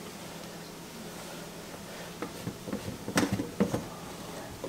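White plastic slip nut on a PVC sink drain being hand-tightened, with a handful of light plastic clicks and knocks starting about two seconds in.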